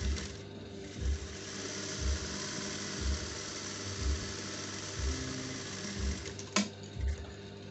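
Juki industrial sewing machine running, a steady mechanical hum and whirr, with a low thump about once a second and a sharp click near the end.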